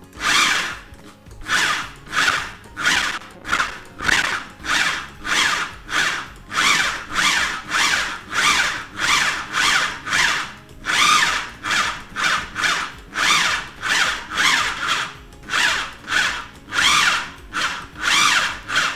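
KitchenAid food processor run in short, rapid pulses, its motor whirring up in pitch on each pulse about one and a half times a second, chopping sliced almonds with sugar and egg into almond paste. Pulsing rather than running steadily makes the nuts bounce back up so everything mixes evenly, and keeps the almonds from releasing their oil.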